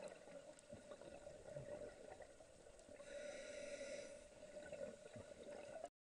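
Scuba diver breathing underwater through a regulator: a hissing inhale of about a second starting about three seconds in, with a few short low bubbling gurgles around it.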